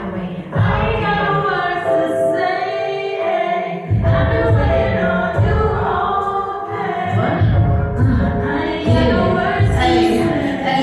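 Live hip-hop/R&B music: layered sung vocals holding a hook over a bass-heavy beat. The low end drops out for a moment and comes back in about four seconds in.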